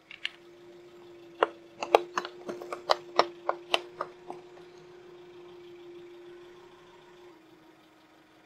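A car tyre rolling over a wooden board of about a hundred upright nails: a quick run of sharp cracks and snaps for about three seconds as the nails bend and the board gives, over the car's steady engine hum.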